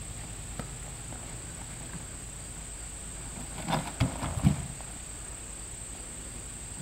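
Steady high-pitched insect chirring, with a short cluster of knocks and rustles about four seconds in.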